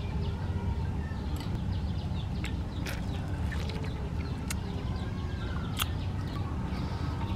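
Birds chirping over a steady low rumble, with a few sharp clicks scattered through.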